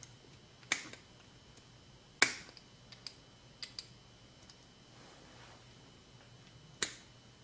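A few sharp, separate clicks and taps from pliers and the metal parts of a small model nitro engine being handled while the pliers reach into the crankcase for the piston. The loudest click comes about two seconds in and another near the end.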